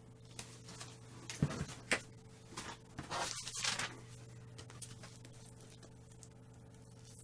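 Handling noises of a vinyl record and its packaging: a few light knocks a little over a second in, then a brief rustle about three seconds in, over a faint steady hum.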